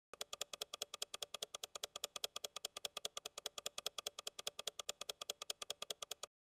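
Fast, perfectly even ticking, about eight ticks a second, added as a clock-ticking sound effect. It starts and stops abruptly.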